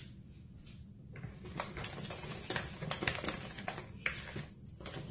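Wire balloon whisk beating a thick semolina cake batter in a mixing bowl: quick, continuous clicking and tapping of the wires against the bowl, starting about a second in, with a brief pause near the end before it resumes.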